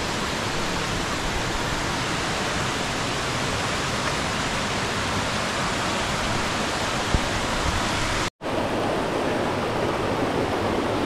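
Steady rush of a mountain stream's cascades. It cuts out abruptly for a moment about eight seconds in, then resumes with a slightly different tone.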